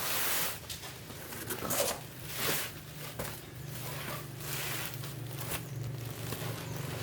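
A series of short rasping scrape or rub strokes over a steady low hum.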